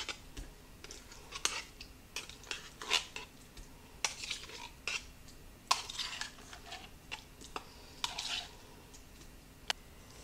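A metal spoon scraping and clinking inside an open tin can as whole berry cranberry sauce is scooped out: irregular light clicks and short scrapes.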